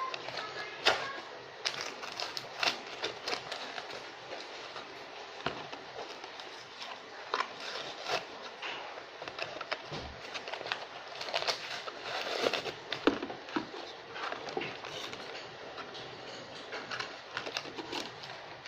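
Crinkling and crackling of a Hot Wheels blister pack, stiff plastic and cardboard, being handled and pried open, with many irregular sharp clicks and rustles.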